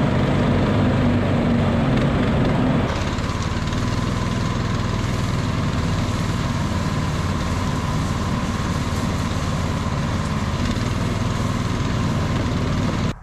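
Snowdog Sport tracked power sled's small engine running steadily while the machine travels. The sound changes a little about three seconds in.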